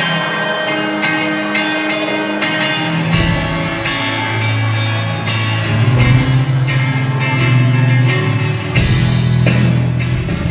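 A live rock band playing an instrumental passage: electric guitars, bass, keyboard and drum kit, with regular drum and cymbal hits. The low end gets heavier about three seconds in.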